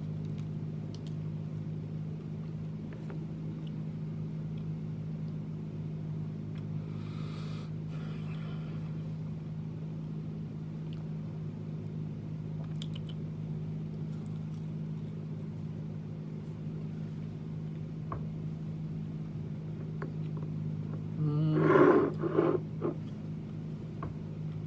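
A steady low hum of several pitches together, from machinery in the room, runs throughout. A short breathy sound comes about seven seconds in, and a man makes a brief voiced vocal sound near the end, the loudest thing heard.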